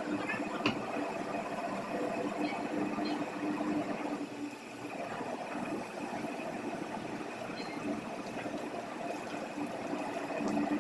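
Ship's engine and machinery running steadily, a droning hum with several held tones over a wash of noise, with one sharp click about a second in.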